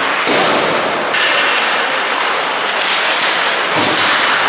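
Steady scraping hiss of ice hockey play in a rink, with a thud about a quarter second in and a duller knock near the end.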